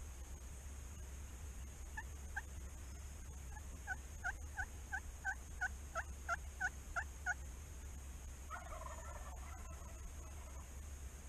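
A series of about a dozen short turkey yelps, evenly spaced at about three a second. Near the end comes a fainter, distant wild turkey gobble.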